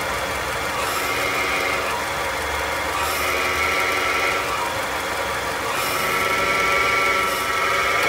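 Worn clutch release (throw-out) bearing of a Nissan NP300 pickup, heard at the transmission bell housing over the idling engine. A higher-pitched bearing noise swells and fades about three times as the clutch is worked. The bearing has run out of grease and its balls are running metal on metal.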